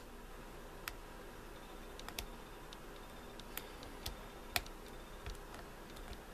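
Lock pick and tension wrench working the pins inside an older Corbin pin-tumbler lock: light metallic clicks and ticks at irregular spacing, about ten of them, a few bunched together near the middle.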